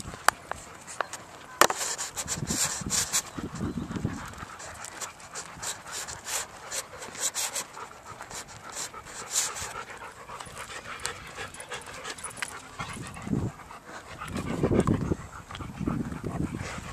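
A dog panting close by, over many light crunching steps on dry ground and brush.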